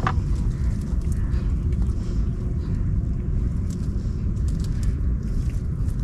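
Steady low rumble of wind buffeting the microphone, over faint ticks and rustles of a wet nylon gill net being hauled by hand into a small wooden boat.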